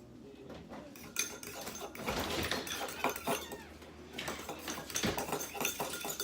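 A spoon clinking and scraping against a bowl in quick, irregular strokes, stirring a thick dish-soap slime mixture as the salt activator makes it clump.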